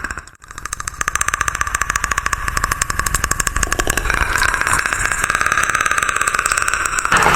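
Predator creature sound effect: a fast, even clicking rattle of about eight clicks a second. It swells louder about four seconds in and turns brighter near the end.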